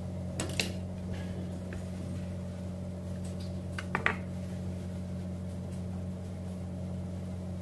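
A steady mechanical hum, as from a motor or fan, runs under a couple of light knocks on a wooden cutting board. The louder knock, about four seconds in, comes as a kitchen knife is set down beside the cucumber.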